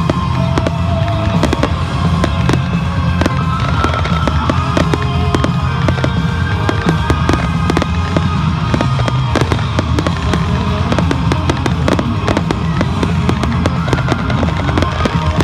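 Ground fireworks crackling and popping in rapid, irregular bursts, over music playing in the background.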